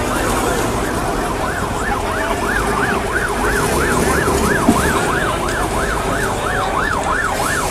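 Ambulance siren in a fast yelp, its pitch sweeping up and down about three times a second, over steady background noise; the siren grows clearer about two seconds in.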